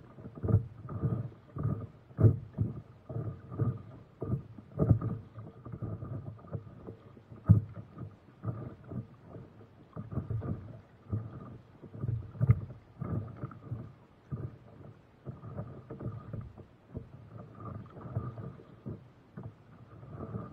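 Lake water slapping and sloshing against the nose of a stand-up paddleboard as it is paddled through small waves: an irregular run of low slaps and splashes.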